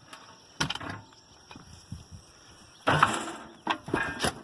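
Metal wheel-clamp hardware from a tractor's dual wheel clanking and knocking as it is handled. There is one knock about half a second in, a louder cluster of clanks about three seconds in, and a few more short knocks near the end.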